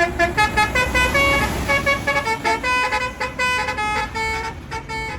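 Telolet bus horn, a set of multi-tone horns playing a quick melody of short notes over a low engine rumble.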